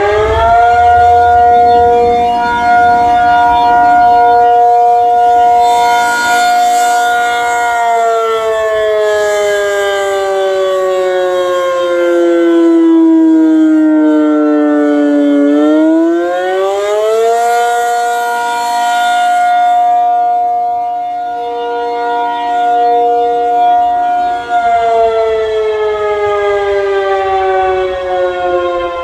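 Reverse-wired ACA Penetrator-50 tornado siren, 50 hp motor with an 8/12-port chopper, sounding its fire signal. It rises to a held tone, falls slowly, climbs back about halfway through, holds again and begins falling once more near the end.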